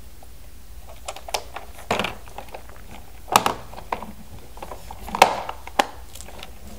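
Hard plastic toy bus and figures being handled: a series of separate clicks and knocks, the loudest about three and a half and five seconds in.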